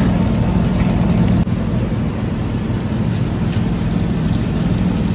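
Steady sizzling from meat cooking on a tabletop grill plate, over a low hum, with a few faint clicks.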